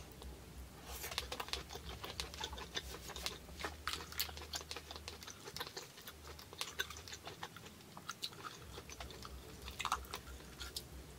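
Soft close-up chewing of lobster meat with irregular small clicks and crackles as a cooked lobster claw shell is handled and pried apart by hand to free the meat stuck inside.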